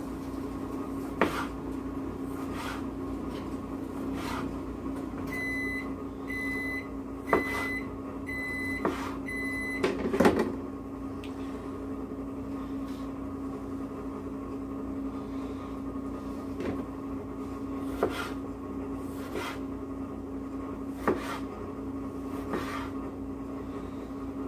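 A kitchen appliance hums steadily, and an electronic beep sounds five times, evenly spaced, about five to ten seconds in. Scattered light knocks and taps come as cherry tomatoes are dropped onto a salad in a plastic container, with the loudest knock just after the beeps.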